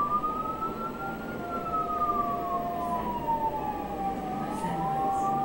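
Emergency-vehicle siren wailing, its pitch rising for about a second and a half, falling slowly for about three seconds, then rising again near the end. A second, steady tone sounds under it for a stretch in the middle and again near the end.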